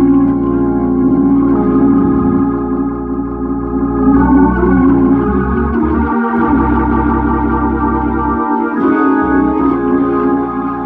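Hammond organ playing sustained chords through a Leslie 122 speaker cabinet running on its freshly rebuilt tube amplifier, the chords changing every second or two over bass notes. The upper notes waver partway through.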